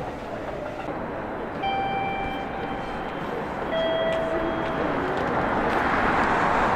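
Busy railway station noise around a Yamanote Line commuter train at the platform, giving way to louder city street noise towards the end. Two steady tones, each a little over a second long, sound about two and four seconds in, the second one lower.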